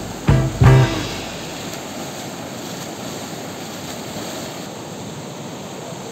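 Rakitnica river rushing steadily over rocks in whitewater. In the first second, two loud notes of background music are heard.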